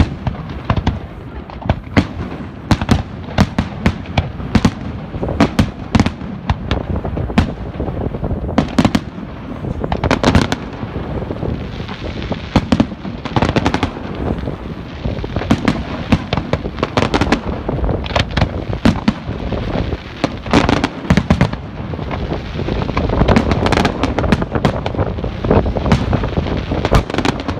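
Fireworks display: a continuous barrage of sharp bangs and crackling, several reports a second, getting denser about ten seconds in and again near the end.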